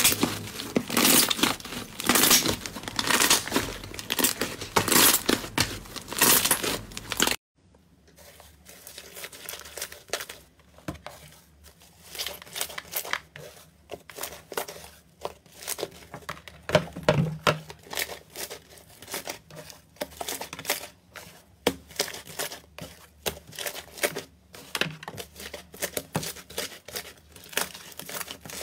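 Hands squeezing and kneading slime: a dense run of sticky clicks, pops and crackles. It is loud for the first seven seconds or so, then cuts off abruptly and continues quieter and sparser.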